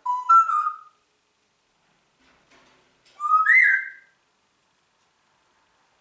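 Congo African grey parrot whistling two short phrases about three seconds apart, each stepping up in pitch, the second higher than the first.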